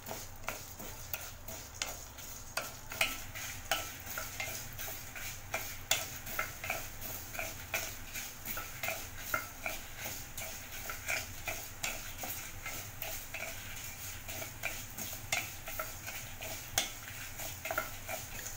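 A wooden spatula stirring and scraping whole spices, lentils and dried red chillies as they roast in a little oil in a kadai, with several short scrapes and clicks a second over a light steady sizzle. This is a masala being dry-roasted until golden.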